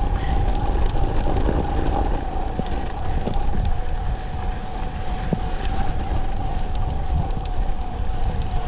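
Wind buffeting a ride-along camera's microphone while riding an electric mountain bike, with a steady whine held at one pitch and scattered ticks and knocks from the bike over the trail.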